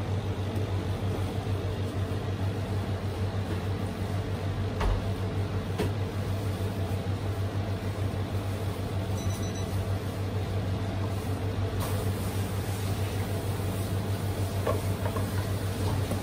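Steady low hum of bakery machinery running, with a few faint knocks.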